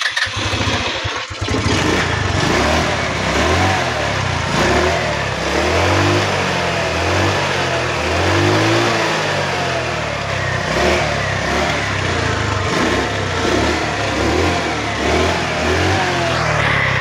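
Four-stroke motorcycle engine running after its carbon-fouled spark plug has been cleaned, revved up and down repeatedly every second or two.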